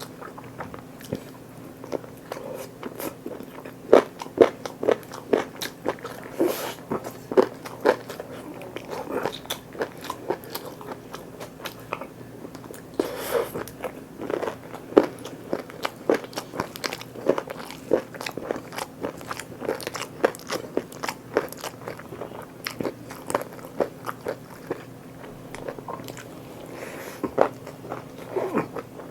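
Close-miked chewing and biting of food by a person eating, a steady run of short, sharp mouth clicks about two a second, over a faint steady hum.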